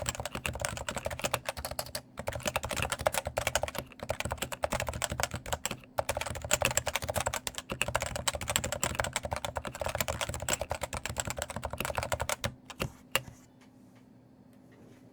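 Rapid, continuous typing on a stock Cooler Master Novatouch TKL keyboard with Topre electrostatic capacitive switches; its light keycaps clatter. The typing breaks off briefly a few times and stops about two seconds before the end.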